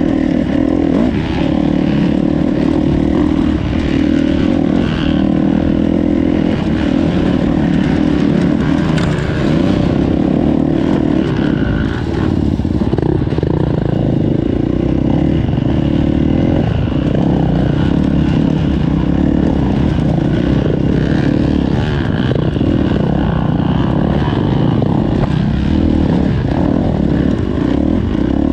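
KTM four-stroke motorcycle engine running loud and continuously as the bike is ridden.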